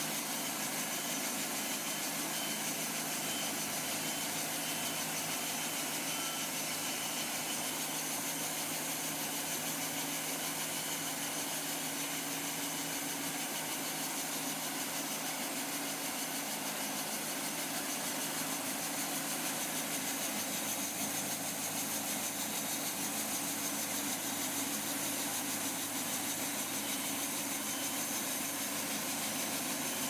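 Wood-Mizer LT70 bandsaw sawmill running steadily, its engine and band blade going evenly as the saw head travels along the track and back.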